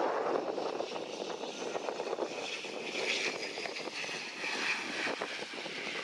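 ATR 42-600 twin turboprop engines running at go-around power as the aircraft passes low overhead. A higher whine comes in about two seconds in and eases off near the end.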